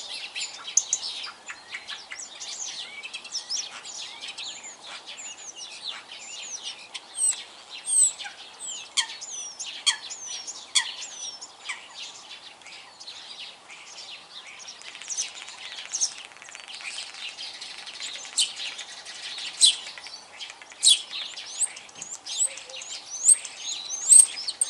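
Common starling singing: a long rambling run of short whistles, many of them slurring downward, mixed with clicks.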